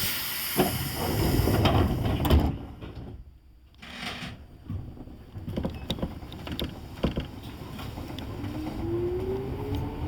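Electric commuter train's doors closing with a loud air hiss and thuds, followed by clunks and then the traction motors whining up in pitch near the end as the train pulls away.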